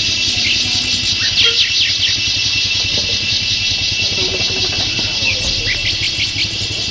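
Motorcycle engines idling steadily, with short high chirps about a second in and again near the end.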